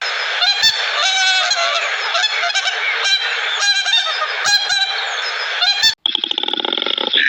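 Farm fowl calling loudly, many calls overlapping. The sound breaks off sharply about six seconds in and a different sound follows.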